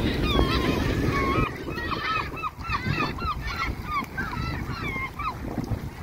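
A flock of gulls calling: many short, arching cries, overlapping at several a second, that fade out about five seconds in. Wind rumbles on the microphone underneath.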